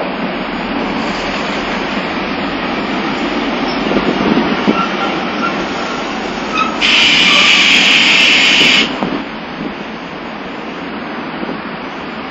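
Nagasaki Electric Tramway streetcars rumbling along the rails through a tram stop, with faint wheel squeals. About seven seconds in, a loud hiss of air from a tram cuts in suddenly and stops after about two seconds.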